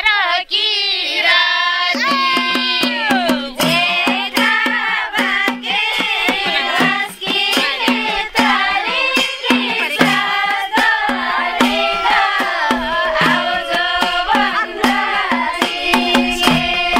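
Nepali folk song (lok dohari): a sung melody with a hand drum that comes in about two seconds in and keeps a steady, even beat.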